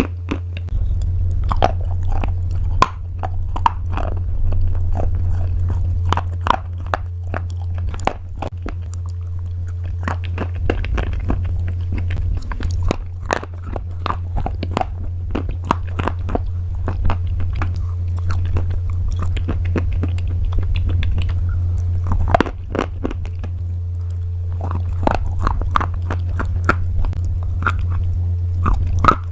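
Crunchy pasta being bitten and chewed close to the microphone: a continuous, irregular run of sharp crunches and cracks over a steady low hum.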